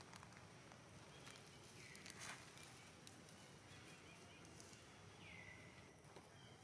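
Faint outdoor quiet with light crunches and rustles of a small monkey walking in dry leaf litter, loudest about two seconds in. Two short high calls, each dropping in pitch and then holding, come about two and five seconds in.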